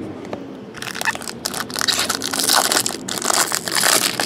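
Foil wrapper of a Bowman Chrome trading card pack crinkling loudly as it is torn open by hand. The crinkling starts about a second in and comes in two long stretches.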